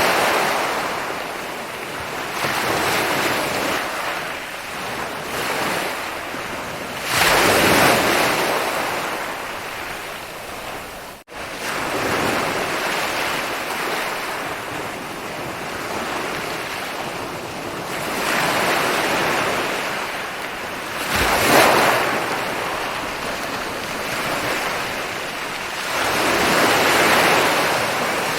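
Ocean waves breaking and rolling onto a beach, with a swell of surf every several seconds. There is a sudden momentary cutout about eleven seconds in.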